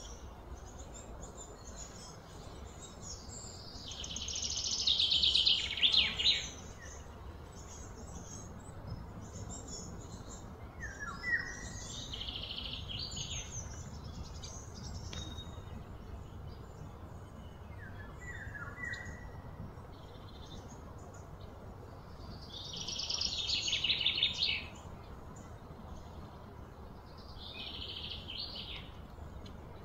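Outdoor birdsong: short falling chirps every several seconds, and two louder rapid buzzing trills of a couple of seconds each, about four and twenty-three seconds in, over a steady low background rumble.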